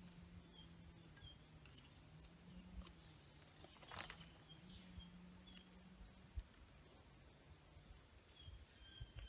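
Faint outdoor quiet with a small bird's short chirps repeating, over a faint low steady hum. Soft knocks and rustles of dry leaves and twigs being handled, with one sharp click about four seconds in.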